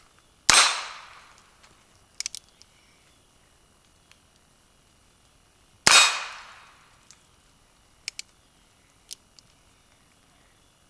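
Two shots from a Heritage Tactical Cowboy .22 single-action revolver, about five seconds apart, each ringing out and fading over about a second. Short, light clicks come between the shots, in keeping with the hammer being cocked for the next round.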